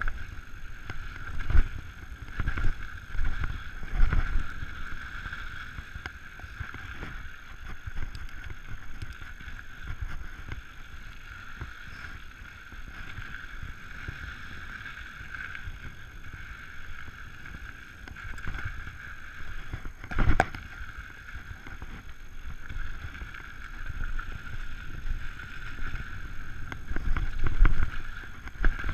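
Giant Trance 29 full-suspension mountain bike rolling fast down a dirt singletrack: a steady rush of tyres on hardpack and wind, with rumble and rattles from the bike over the rough ground. Several sharp knocks come as it hits bumps, the loudest about twenty seconds in.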